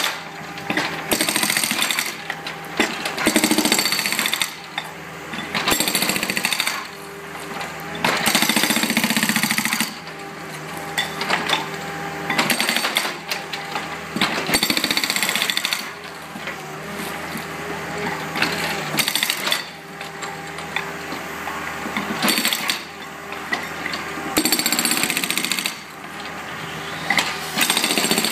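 A hydraulic breaker on a Takeuchi TB145 mini excavator hammers concrete in repeated bursts of one to two seconds. Between bursts the excavator's diesel engine runs steadily.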